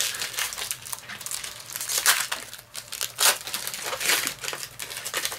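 Foil booster-pack wrappers of Yu-Gi-Oh cards crinkling as the packs are opened and handled. The rustling is irregular, with louder crackles about two, three and four seconds in.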